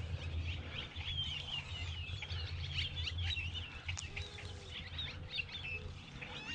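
Many small birds chirping and twittering together, a dense run of short, quick calls with no pause, over a steady low rumble.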